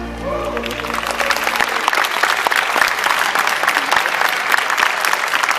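Audience applauding at the end of a dance number: the last low note of the music dies away in the first second and a half while dense clapping builds up and carries on.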